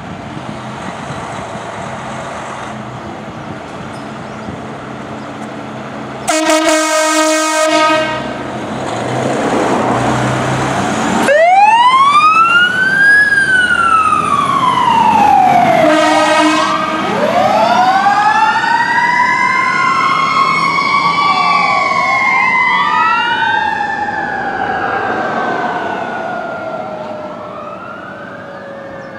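Pierce fire truck responding under emergency warnings: a long horn blast, then a second short one, with sirens wailing up and down and overlapping one another. Near the end one siren slowly falls in pitch.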